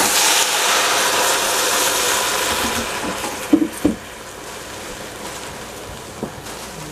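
Plain water poured from a kettle into a hot stainless steel pot of stir-fried cabbage and broccoli, splashing and hissing for about three and a half seconds. Then a couple of sharp knocks, and a softer hiss goes on from the pot.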